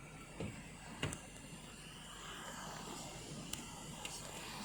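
Rain on a car, heard from inside: a faint steady hiss with a few light taps.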